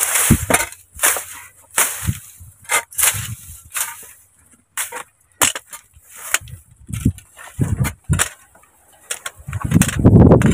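A metal rod jabbing and scraping into dry soil at a snake hole, with weeds being pulled and rustling: irregular sharp knocks and scrapes, bunched close together at times.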